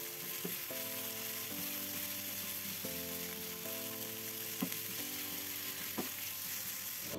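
Minced chicken breast sizzling as it is stir-fried in oil in a non-stick pan, with a spatula scraping through it and clicking against the pan a few times.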